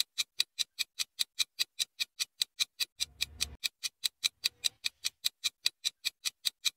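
Clock-ticking sound effect for a quiz countdown timer: sharp, evenly spaced ticks, about five a second.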